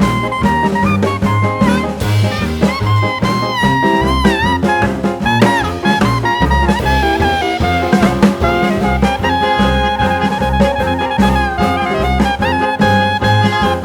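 Background music: jazzy swing with brass or saxophone melody over a steady bass and drum beat.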